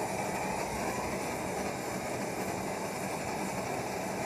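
MAPP gas torch burning steadily into a small homemade forge: a constant, even rush of flame noise.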